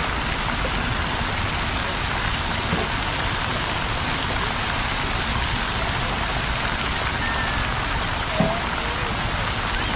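Water splashing and falling steadily in a plaza fountain pool, an even rushing hiss with no breaks.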